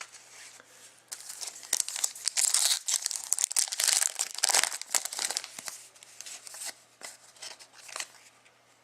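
Trading-card pack wrapper crinkling and tearing as it is opened and handled: dense crackling from about a second in, thinning to scattered crinkles in the last few seconds.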